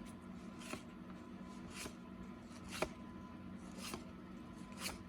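Cardboard trading cards being slid and flipped one over another by hand, a faint swish about once a second, with one sharper click near the middle.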